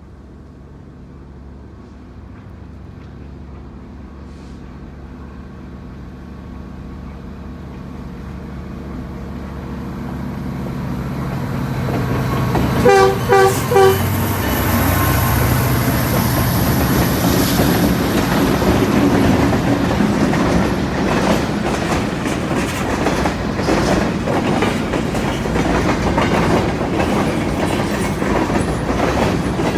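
CN SD75i-led diesel freight train approaching, its engines growing steadily louder. About 13 seconds in, three short locomotive horn blasts sound as a horn show. The locomotives then pass and railcars roll by with clickety-clack over the rail joints and a faint high wheel squeal.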